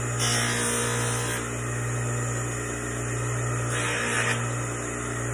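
Bench buffer motor running steadily with a low hum, turning a medium-density stone buffing wheel. A stainless steel blank pressed against the wheel adds a brief hiss twice, near the start and about four seconds in.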